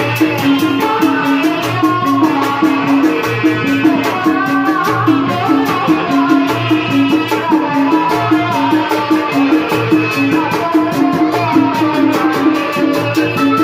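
Live tanji band music for a kuda renggong show, with a fast, steady percussion beat under a melodic line.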